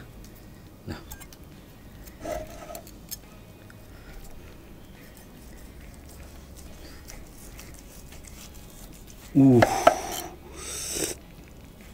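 Chef's knife slicing down through a skewered, charcoal-grilled wagyu picanha on a wooden board: quiet rasping and rubbing strokes of the blade through the charred crust and meat. Near the end a short, louder voiced exclamation.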